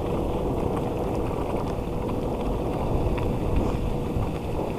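Dog scooter rolling along a wet trail behind running huskies: a steady rumble of the tyres and wind on the microphone, with a faint steady hum underneath.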